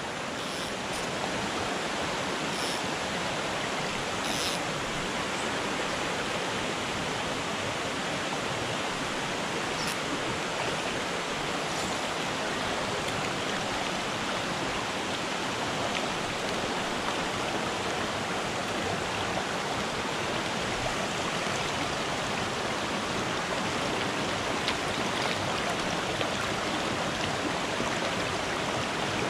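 Shallow mountain trout creek running over rocks: a steady rush and ripple of flowing water.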